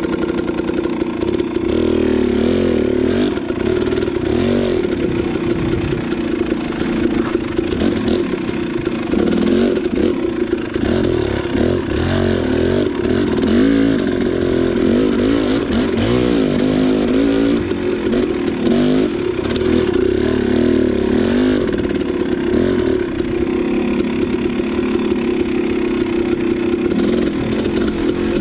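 KTM 300 two-stroke dirt bike engine running under way, its pitch rising and falling over and over as the throttle is worked.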